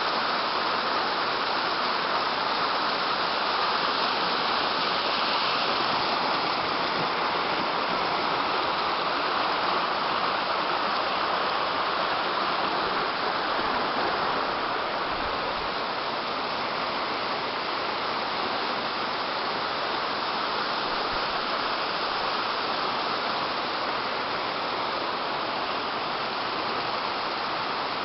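Waterfall rushing steadily, a continuous wash of falling water.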